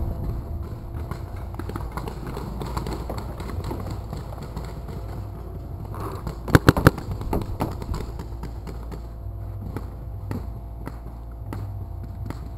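Paintball marker fired in a quick burst of four sharp shots about six and a half seconds in, amid scattered faint pops of other paintball markers.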